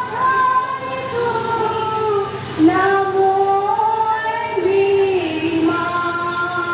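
Women's and children's voices singing a devotional hymn, with long held notes that step and glide from one pitch to the next.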